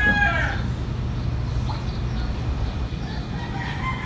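Rooster crowing: the tail end of a crow in the first half second, and a fainter crow near the end, over a steady low hum.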